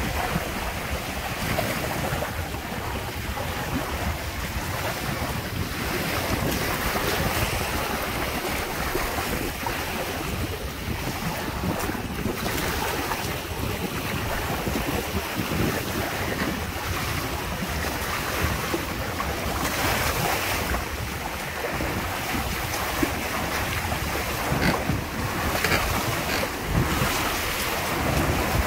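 Wind buffeting the microphone over water rushing and splashing along the hulls of a Windrider 17 trimaran sailing through choppy water. A few louder splashes come near the end.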